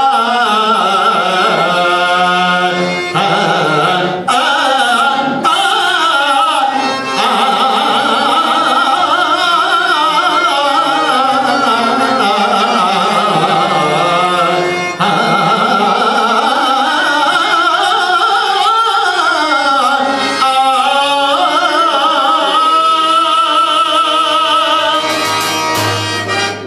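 A man singing a Telugu padyam (drama verse) in a slow classical style, holding long notes that rise and fall in wide, ornamented arcs, through a stage microphone.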